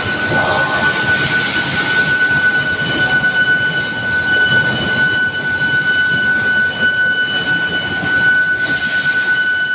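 Steel billet induction heating furnace running: a steady high-pitched whine with fainter overtones over continuous machinery noise.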